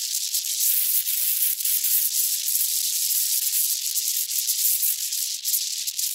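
Wind noise heard as a steady, high-pitched hiss with no low rumble under it, wavering slightly in loudness.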